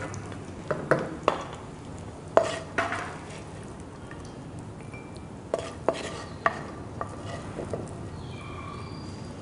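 Metal spatula scraping and clinking against a pan while cashews and raisins fry in ghee, with a faint sizzle underneath. A dozen or so sharp clinks are spread through it.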